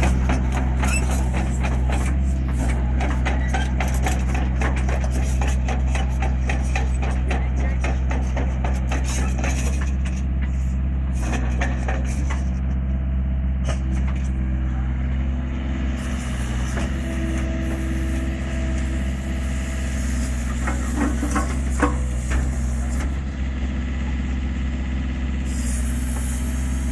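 Hyundai 55-7A mini excavator's diesel engine running steadily, with dense clanking and rattling through roughly the first half as it tracks and pushes soil with its blade. A steady higher whine joins partway through as the boom and arm are raised.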